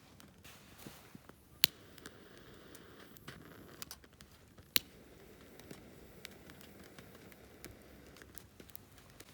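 Firewood burning in a fire pit, crackling with scattered small pops and two loud, sharp pops, about one and a half seconds in and near five seconds in.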